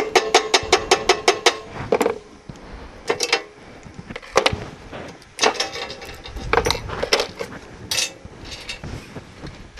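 Runs of sharp, ringing metal taps: a chipping hammer rapping on stainless rods lying on a steel checker plate, knocking slag off fresh stick welds. A fast run of about eight taps opens, and shorter bursts follow every second or so.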